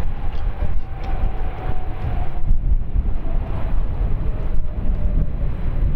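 Jet engine noise from a Boeing 737-800 after landing, a faint whine slowly falling in pitch, under a heavy gusting wind rumble on the microphone.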